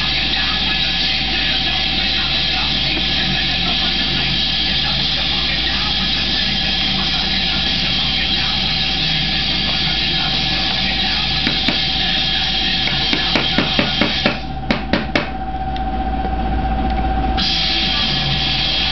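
Steady background hum and hiss. About two-thirds of the way in comes a run of roughly ten sharp clicks, the last few loudest, as parts of a hi-capa airsoft pistol are worked by hand.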